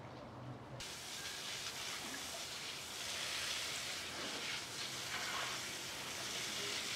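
A steady, even hiss that starts abruptly about a second in.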